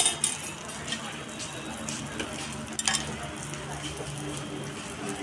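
Roti canai and a fried egg sizzling on a flat griddle, a steady frying hiss, with sharp clicks of the metal spatula against the griddle near the start and about three seconds in.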